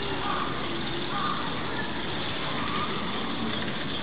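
Steady outdoor background noise with a few faint, short calls in the distance.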